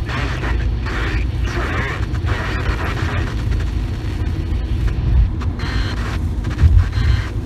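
Steady low rumble of a moving car, with a hiss over it that is strongest in the first few seconds.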